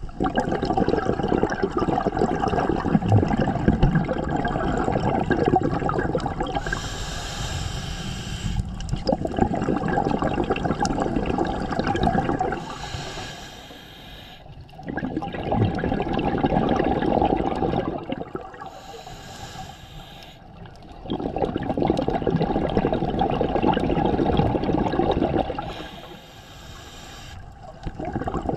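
Scuba diver breathing through a regulator underwater. Long bursts of exhaled bubbles gurgle loudly, broken by quieter gaps about every six seconds, where the inhalation comes as a thin high hiss.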